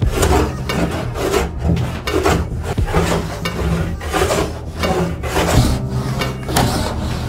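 Hand bench plane pushed along a wooden workbench top in steady back-and-forth strokes, about two a second, each stroke a rasping shave of wood as the top is planed flat.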